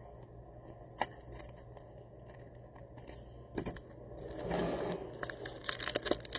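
Trading cards and a card pack wrapper being handled: a few light clicks and taps, then, from a little past halfway, crinkling and rustling with quick clicks of cards being slid and stacked, busier near the end.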